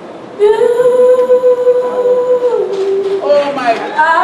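A boy singing into a handheld microphone: a long held note begins about half a second in, then a quick run of notes, and another held note starts near the end.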